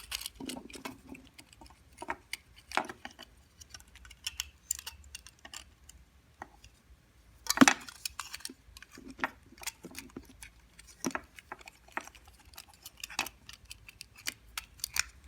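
Scattered small clicks, taps and light rattles of small hard parts and tools being handled during a doorbell repair, irregular, with one louder knock about seven and a half seconds in.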